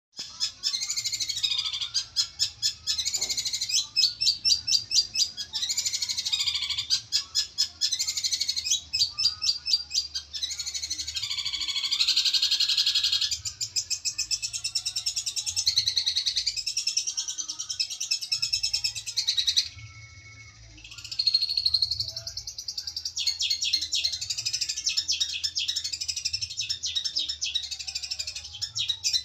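Caged long-tailed shrike (cendet) singing an aggressive 'fighter' challenge song, meant to call out rival shrikes. It is a fast, almost unbroken run of rapid repeated notes, with a break of about a second two-thirds of the way through.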